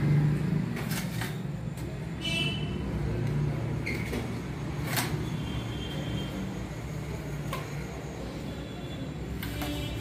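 A butcher's knife knocking sharply on a wooden chopping block a few times while a slaughtered chicken is handled, over a steady low hum. A few short high chirps come in between.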